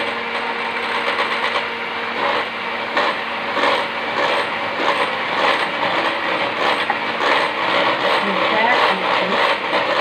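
Electric hand mixer running steadily, its twin beaters whisking eggs in a bowl.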